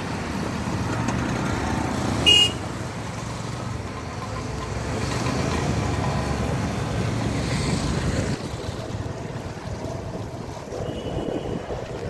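City traffic noise heard from a moving motorbike, steady rumble of engines and tyres. A short, high-pitched vehicle horn beep cuts through about two seconds in.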